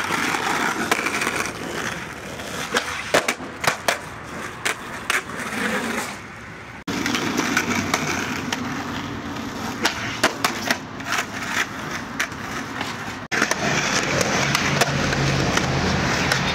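Skateboard on pavement: wheels rolling with repeated sharp clacks of the wooden deck against the ground. The sound changes abruptly twice, about seven and thirteen seconds in, where clips are cut together.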